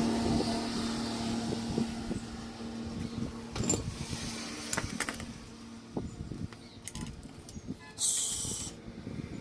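Mixed workshop noise: a steady low hum that fades out about six seconds in, scattered sharp metallic clicks and knocks, and a short sharp hiss near the end.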